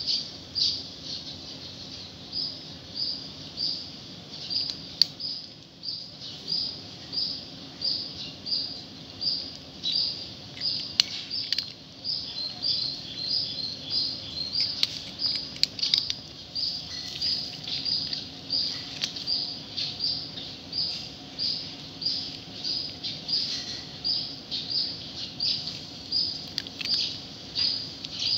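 A small bird chirping over and over at a steady pace, about one and a half short, high chirps a second, with a few sharp clicks mixed in.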